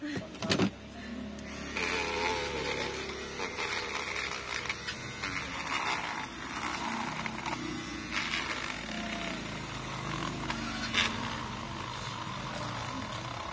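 A small handheld electric glue-removal tool runs with a steady low hum as its spinning metal rod scrapes old screen adhesive off the edge of a phone's frame. A sharp click comes about half a second in.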